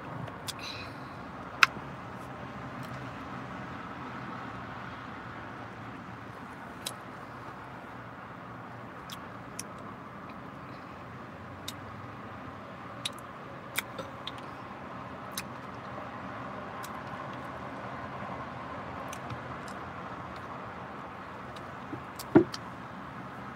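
Eating sounds: scattered wet clicks and smacks of lips and fingers as sauce is licked off the fingers, over a steady background hiss. Two louder sharp clicks stand out, one near the start and one near the end.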